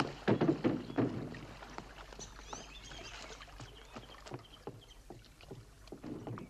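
A rowed boat on water: oars splashing and knocking against the boat, with the water sloshing around it. The knocks are strongest in the first second, then go on more softly and irregularly.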